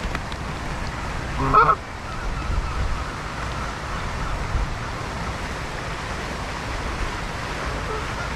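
A Canada goose gives one loud honk about one and a half seconds in, over a low rumble of wind on the microphone.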